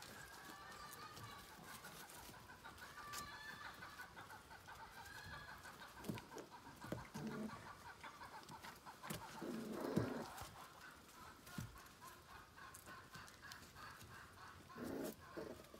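Soft, continuous clucking chatter, typical of hens in the background. A few short, louder low sounds come about six, ten and fifteen seconds in.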